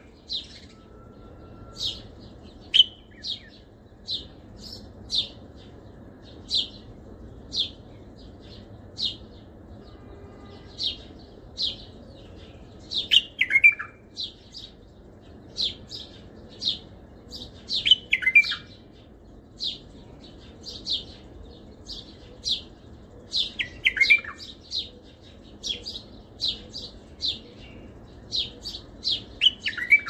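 Bulbul singing in the Baghdadi style: a run of short, high chirped notes, one or two a second, broken four times by a louder falling, slurred phrase.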